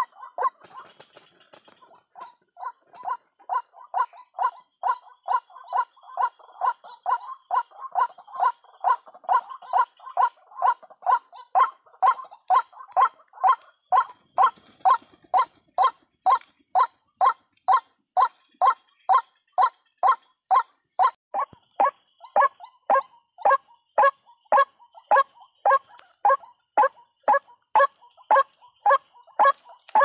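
White-breasted waterhen calls: one short, harsh note repeated about twice a second in a long, steady run. A steady high insect trill runs underneath.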